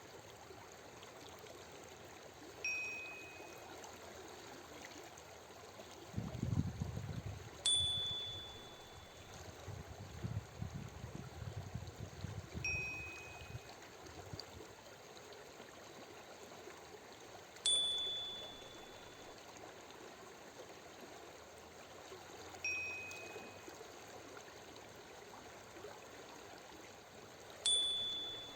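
Steady flowing-water ambience with a short chime every five seconds, alternating between a higher and a lower tone to mark each switch between breathing in and breathing out. A low rumble swells and fades between about six and fourteen seconds in.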